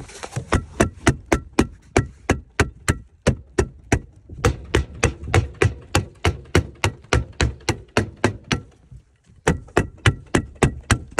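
Hammer rapidly driving fasteners through synthetic roofing underlayment into the plywood roof deck, about three sharp strikes a second with a brief pause near the end before the hammering resumes.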